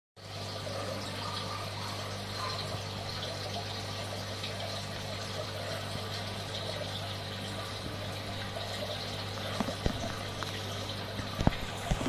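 Small aquarium pump running in a tub of water: a steady hum under a constant trickle of moving water. A few light knocks near the end.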